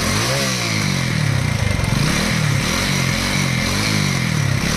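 TVS Apache RTR 200's single-cylinder engine being revved in repeated blips, about one a second, with the weird, very irritating sound from the exhaust that the owner traces to the loose inner pipe inside the bend pipe shaking.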